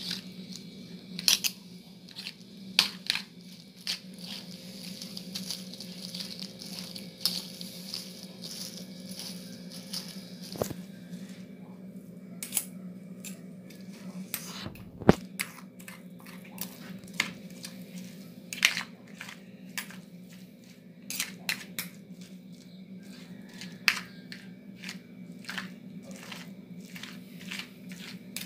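A metal spoon and fork clicking and scraping against a plastic plate while shredding cooked chicken breast. The ticks come at irregular intervals, the sharpest about halfway through, over a steady low hum.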